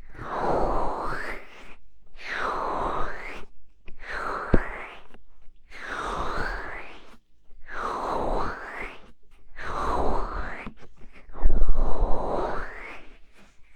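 Hands cupping and rubbing over the ears of an ASMR microphone in slow, repeated strokes, about one every two seconds. Each stroke is a muffled swell of rustling that dips and then rises in pitch, with short pauses between strokes and one sharp click partway through.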